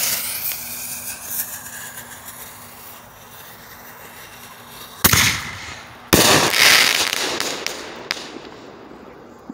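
Crackling artillery shell fireworks: a loud burst with a dense crackle that fades over a few seconds. About five seconds in comes a sharp bang, and a second later another long crackling burst that slowly dies away.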